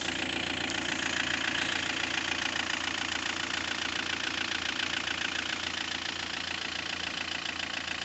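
High-mileage Sofim 2.8 JTD/HDi four-cylinder common-rail turbodiesel in a Fiat Ducato idling with a fast, even diesel clatter, getting louder over the first second. The engine is still cold after a −20 °C cold start.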